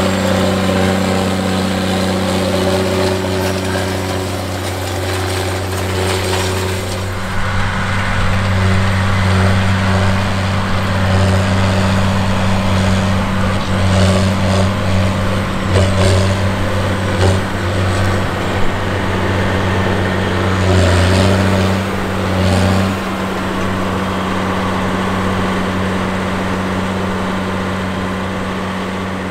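John Deere 9620T tracked tractor's 500 hp diesel engine running steadily under load while pulling a reel disk through the soil. Several short rattles and clanks come through about halfway through.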